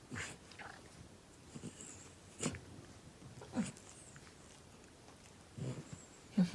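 Elderly miniature dachshund making short nasal snorts, about half a dozen brief ones a second or more apart, the loudest near the end. The dog's inflamed gums bring on heavy sneezing and a runny nose.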